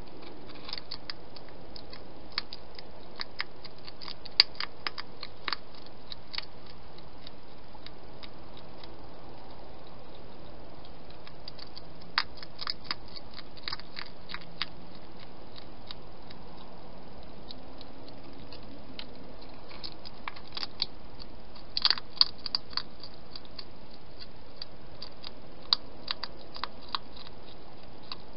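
Wild hedgehog chewing and crunching its food, in several bursts of quick sharp crunches with pauses between, over a steady background hiss.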